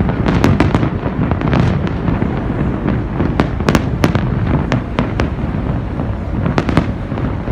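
Fireworks display: a steady low rumble of bursts overlaid with many sharp bangs and crackles in quick, irregular succession.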